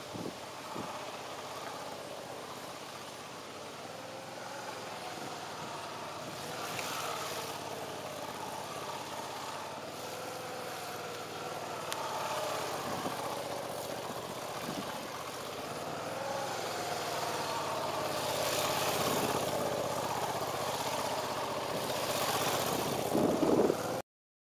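Motorcycle engine running at low speed as the bike circles tightly at full steering lock, its note rising and falling with the throttle. The sound cuts off suddenly near the end.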